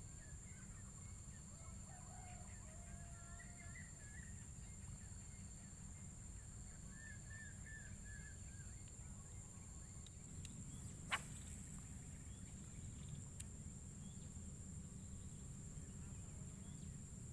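Faint rural ambience: small birds chirp briefly a few times over a steady high hum and a low rumble. One sharp click comes about eleven seconds in.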